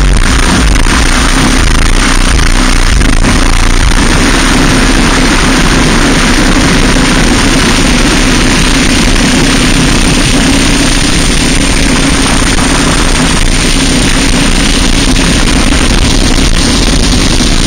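Racing kart's Briggs & Stratton Animal single-cylinder four-stroke engine running hard at a fairly steady pitch, recorded onboard and mixed with heavy wind buffeting on the camera microphone.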